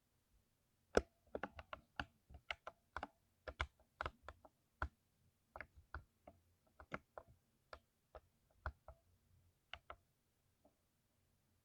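Typing on a mechanical keyboard with lubed switches: irregular keystrokes, several a second, starting about a second in and stopping about ten seconds in.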